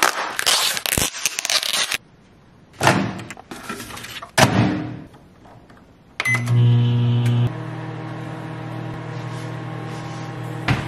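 Countertop microwave oven being loaded and started: plastic handling noise, a couple of knocks, then a click and a short beep about six seconds in. The oven then runs with a steady electrical hum, louder for its first second before settling to an even drone.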